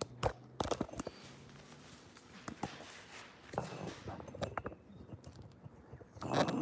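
Handling noise from a camera being moved and set up: a few sharp knocks in the first second, then soft ticks and rustling, with a louder rustle near the end.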